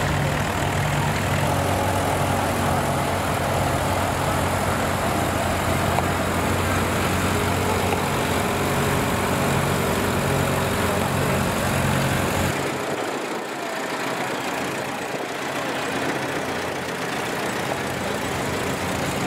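An engine idling steadily with a low, slowly pulsing throb. About two-thirds of the way through, the low throb cuts off abruptly, leaving a lighter mechanical running sound.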